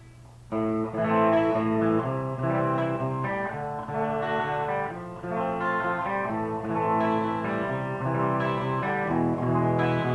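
Custom T-style electric guitar played through its bridge Lace Alumitone humbucker, a passage of picked chords starting about half a second in.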